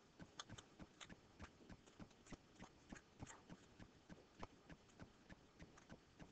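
Near silence with faint, short clicks, a few each second.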